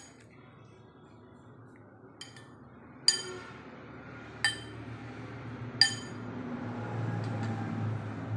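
Metal spoon clinking against a glass bowl as chopped dragon fruit is stirred and mixed: several sharp ringing clinks about a second or so apart.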